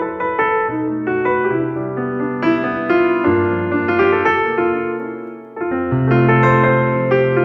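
Background piano music: a melody of many short notes over held bass notes, dipping briefly past the middle and coming back in.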